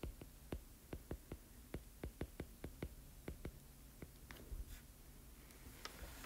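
Stylus tip tapping and clicking on a tablet's glass screen while block letters are handwritten: a quick run of light ticks, about four a second, that thins out to a few scattered taps after about three and a half seconds.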